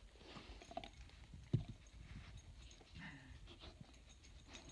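Faint handling noise as a rawhide bone is pulled out of its plastic wrapper and set down for the dog: light scattered clicks and rustles, with one soft knock about a second and a half in.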